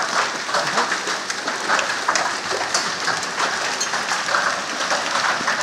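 Hail and heavy rain pelting down, a dense hiss of countless small hits.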